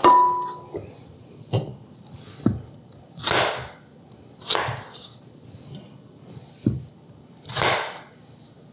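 A clink with a short ring as diced potatoes are tipped into an electric skillet. Then a knife cuts peeled potatoes on a plastic cutting board: a few light knocks and three swishing slices.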